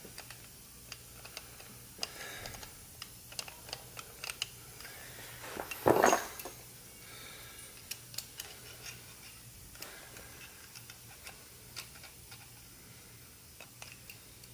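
Small metallic clicks and taps of a hand-turned HeliCoil insertion tool being handled and lined up in a stripped M6 hole, scattered irregularly, with one louder, noisier clatter about six seconds in.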